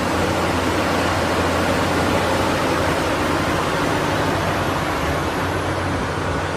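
Caterpillar 6015B hydraulic mining excavator at work, its engine a steady low rumble under an even roar.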